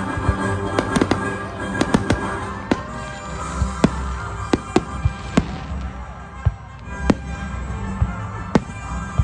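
Aerial firework shells bursting in a rapid, irregular run of sharp bangs, about two a second, with music playing underneath.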